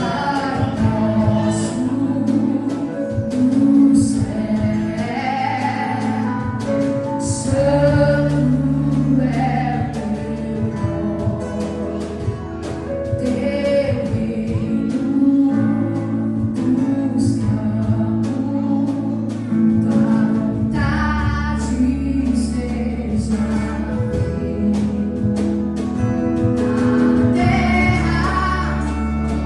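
Gospel song with singing voices carried by sustained bass notes and steady drum and cymbal strokes.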